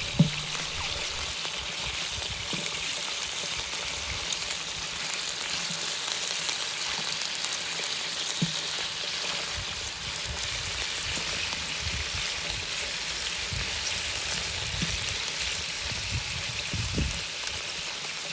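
Chicken and pork pieces frying in oil in a wide paella pan over a wood fire: a steady sizzle with fine spitting crackles. A sharp knock right at the start and a few dull knocks near the end.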